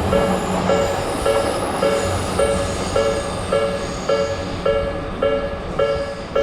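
Japanese railroad crossing alarm ringing steadily, a two-tone electronic clang repeating just under twice a second, while an electric train runs past, its rushing noise fading toward the end.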